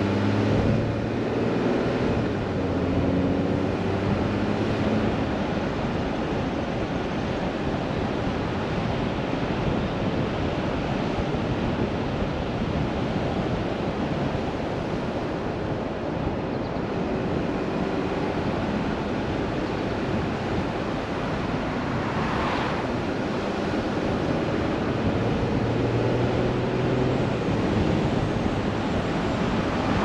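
Steady tyre and wind noise of a car driving, with a low engine hum in the first few seconds and again near the end.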